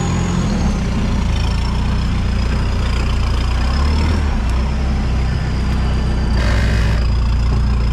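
Off-road 4x4's engine running at low revs as the vehicle crawls over rough, rutted dirt, with a thin high whine above it. A short burst of noise comes about six and a half seconds in.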